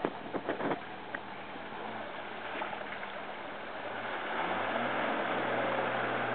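Jeep Grand Cherokee ZJ driving into a shallow river: its engine revs up about four seconds in and holds, with water splashing and washing around the wheels. A few sharp clicks near the start.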